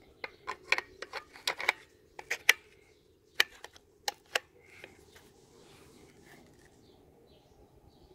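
Metallic clicks of a Mendoza .22 rifle's bolt being worked to load a cartridge: a quick run of clicks over the first two and a half seconds, then three more clicks between about three and a half and four and a half seconds in.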